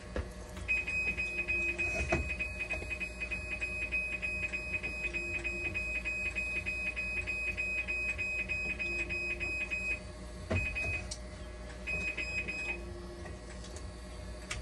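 Dialysis machine alarm beeping rapidly at one high pitch, about three or four beeps a second, over a low steady hum. It stops about ten seconds in, then sounds again twice briefly.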